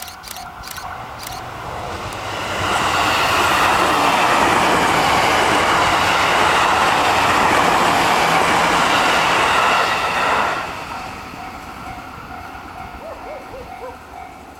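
E653 series electric train passing a level crossing at speed: the rush of wheels on rail builds about two seconds in, holds loud for about eight seconds, and drops off sharply. The crossing's warning bell rings in a rapid, even ding-ding before the train arrives and again once it has gone by.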